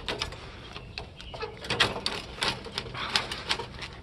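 Irregular sharp clicks and snips of garden loppers cutting through the soft metal of an air conditioning unit.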